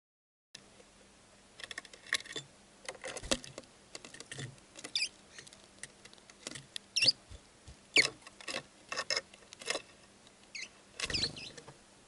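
Sparrows hopping and pecking on a wooden bird feeder close to the microphone: irregular quick taps, scratches and clicks, the sharpest about seven and eight seconds in.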